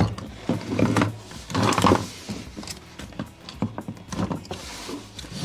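Irregular knocks, clunks and scrapes of plastic dishwasher parts and a rubber seal being handled and pushed into place, with a longer scrape about a third of the way in.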